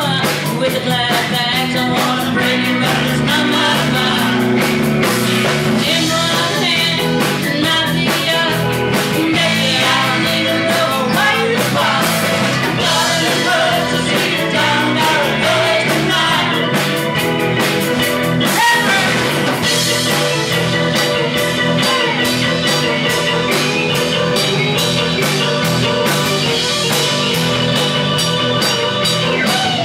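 Live rock-and-roll band playing with a steady beat: electric guitar, bass and drums, with a singer.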